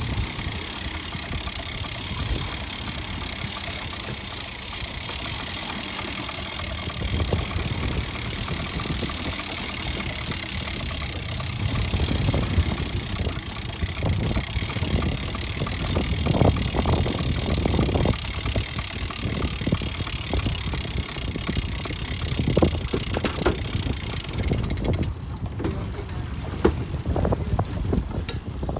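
A fishing boat's engine running steadily, with wind buffeting the microphone; from about halfway in, louder gusts and short knocks or splashes come and go over it.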